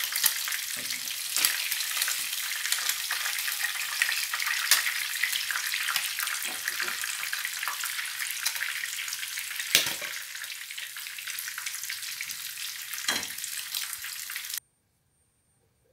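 Pieces of fish deep-frying in vegetable oil in a frying pan: a dense, steady sizzle full of fine crackles. A metal skimmer knocks against the pan a couple of times as the pieces are turned and lifted. The sound cuts off suddenly near the end.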